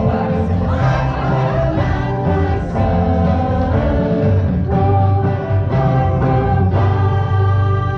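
A song with a steady bass line and voices singing, most likely a cast group number.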